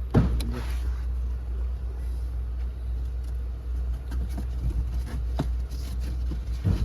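Scattered clicks and knocks of a new car blower motor and its packaging being handled, over a steady low rumble.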